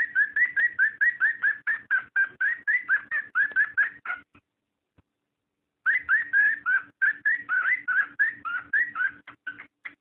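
Cockatiel mating call: rapid runs of short whistled chirps that rise and fall, about five a second. The chirping breaks off a little past four seconds in and resumes about a second and a half later.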